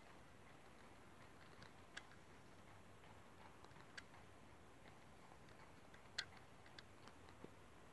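Near silence: a faint hiss broken by a few soft, sharp clicks, the first three about two seconds apart, then three more close together near the end.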